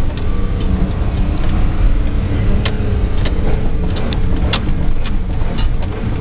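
Cabin sound of a 1997 Geo Metro's three-cylinder engine running steadily at low speed, with road rumble. Several short sharp clicks and knocks come through in the second half as the little car bounces along.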